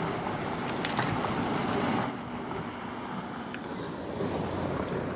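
Wind buffeting the microphone: a steady low gusting noise, easing a little about two seconds in.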